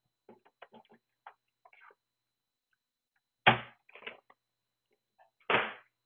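Small clicks of cable connectors and parts being handled, then two loud knocks about two seconds apart as a WD Purple 3.5-inch hard drive is set down against the sheet-metal chassis of a network video recorder.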